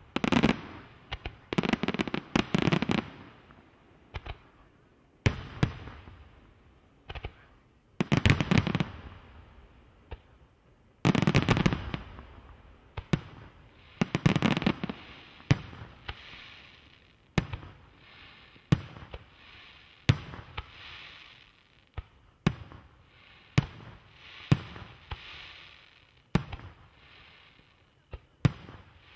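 Aerial firework shells by Pirotecnica FA.SI.MA. bursting with sharp bangs. In the first half the bangs come in quick clusters; later they come singly, about once a second, with a steady crackle between them.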